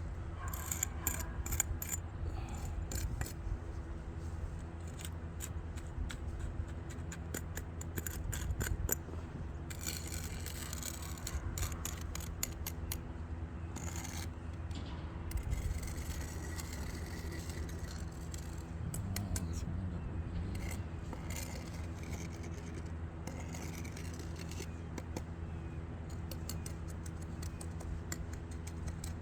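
Shovel scraping and clicking against brick while wet, runny mortar is worked into cracks and holes, in irregular clusters of short scrapes. A steady low hum runs underneath.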